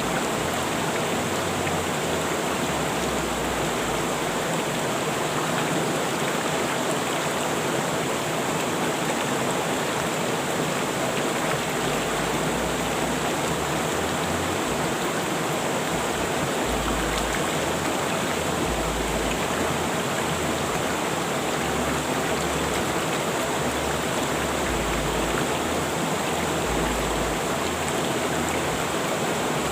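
River water rushing and splashing steadily over rocks, an even, unbroken wash of noise.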